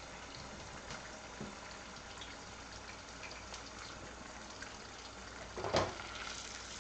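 Hot oil sizzling steadily with faint crackles as egg rolls deep-fry and sliced scallions start to bubble in canola oil. A single short knock near the end, as the small pot is handled.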